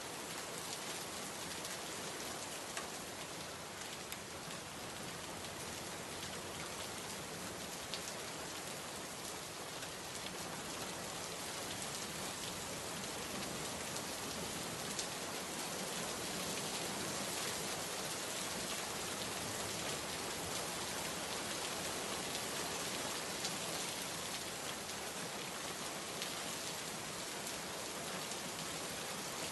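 Steady rain falling, an even hiss with a few sharper drop ticks here and there; no thunder.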